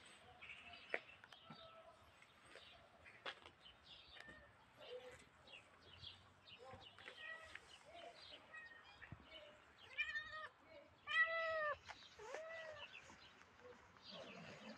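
Cat meowing: three meows in quick succession about ten seconds in, the middle one the loudest, with fainter short chirping calls before them.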